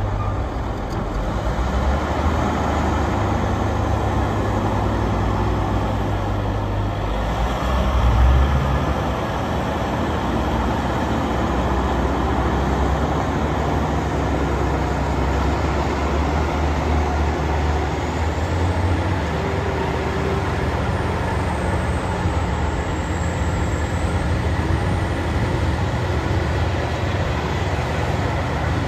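Caterpillar 988H wheel loader's six-cylinder diesel engine running under load as the machine drives and manoeuvres, its note rising briefly about eight seconds in.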